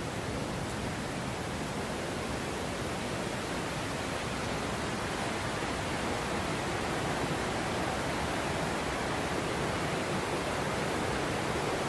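Steady, even rushing noise, growing slightly louder toward the end.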